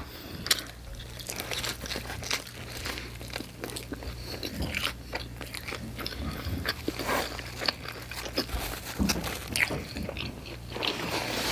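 Close-miked chewing of pizza topped with crunchy Hot Cheetos: a continual run of small crunches and wet mouth clicks, over a low steady hum.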